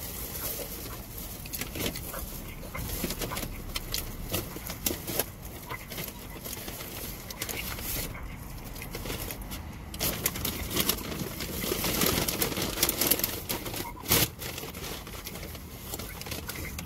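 A person chewing and smacking their lips while eating chicken nuggets, with many small mouth clicks. The clicks come thicker from about ten seconds in, and a sharper knock sounds about fourteen seconds in.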